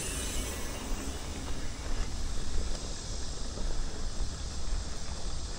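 Wind buffeting the microphone outdoors: a steady low rumble under an even rushing noise.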